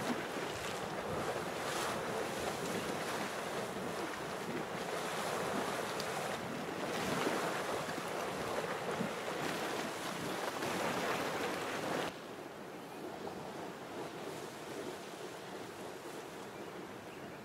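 Spouter geyser boiling and splashing without pause, a dense seething rush of water and steam that surges and eases. About twelve seconds in it cuts abruptly to a quieter, steadier rush from a steaming geyser pool.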